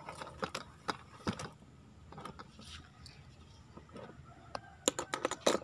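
Scattered light clicks and taps, with a quick cluster of them near the end.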